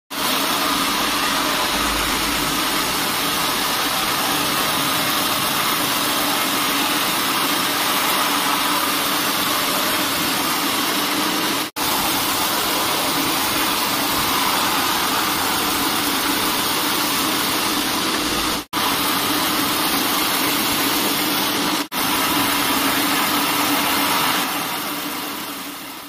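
Band sawmill running with its blade sawing lengthwise through a log: a loud, steady mix of machine noise and blade cutting wood, with three brief breaks, fading out near the end.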